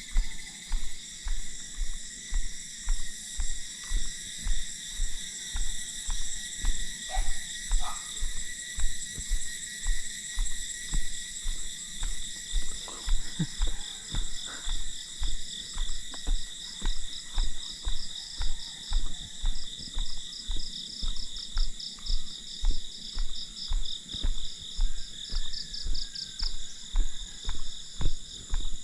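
Footsteps thudding about twice a second as the person filming walks along, over a steady high-pitched chorus of insects that trills and pulses.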